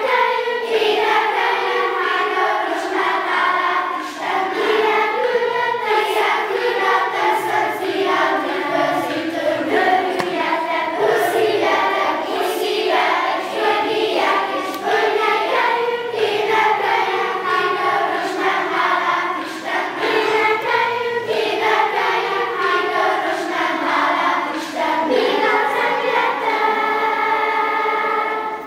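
Children's choir of boys and girls singing together, many voices on a sustained melody. The singing stops right at the end.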